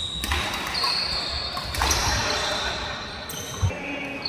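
Badminton doubles play in a large indoor hall: court shoes squeaking in short high chirps on the floor, with one sharp knock a little before the end.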